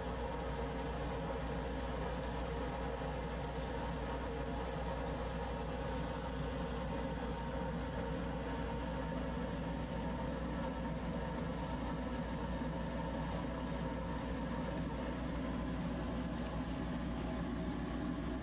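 Steady mechanical hum with several held tones, unchanging.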